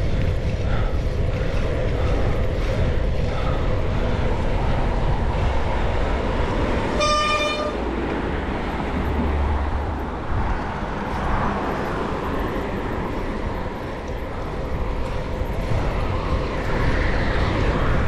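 City traffic and wind noise on the microphone of a moving bicycle, with one short vehicle horn toot about seven seconds in.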